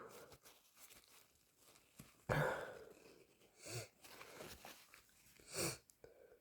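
A person with a cold making short breathy nose-and-throat sounds: a sudden one about two seconds in that fades away, then two brief ones in the second half.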